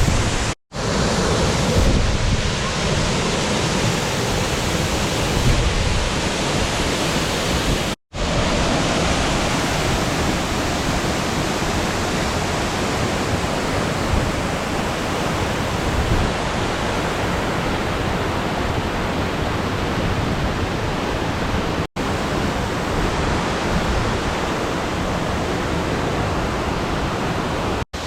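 Loud, steady roar of a large waterfall heard close up, with a few very brief drop-outs.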